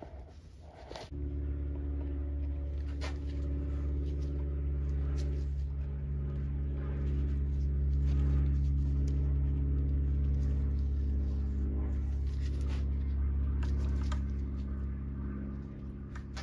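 A steady low machine hum starts abruptly about a second in and runs on. On top of it are scattered light clicks of a hand tap and tap handle being worked into a threaded hole in an aluminum transmission case.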